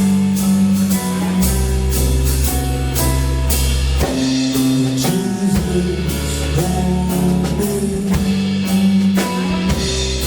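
A live band playing rock-leaning music: a drum kit keeping a steady beat over held bass notes that change every second or two, with guitar.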